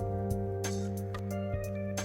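Background music of held chords that change about a second and a half in, with irregular sharp clicks over them.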